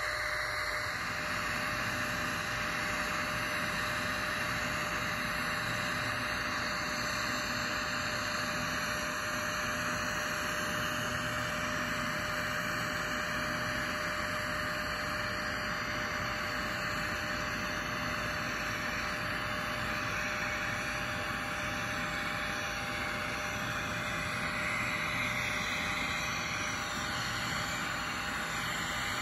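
TIG welding arc giving a steady hiss while the cap pass is laid on a 2-inch pipe coupon.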